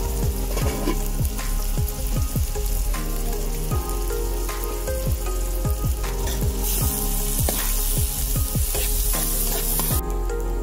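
Chopped onions and green chillies sizzling as they fry in oil in a metal kadai, with some stirring. The sizzle gets much louder about two-thirds of the way through and cuts off sharply near the end.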